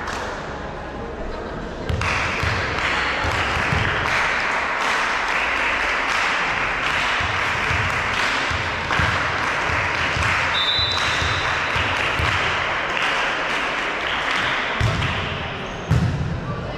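Volleyball being played in a sports hall: a steady din of voices, with repeated knocks of the ball being hit and bouncing.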